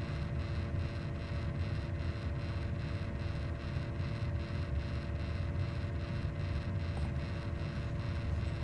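A steady low mechanical hum and rumble with a faint pulsing about three times a second.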